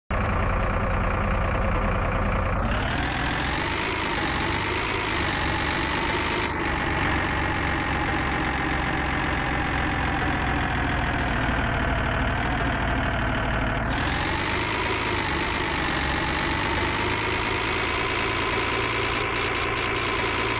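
Engine running steadily at idle, its pitch swelling up and easing back down twice.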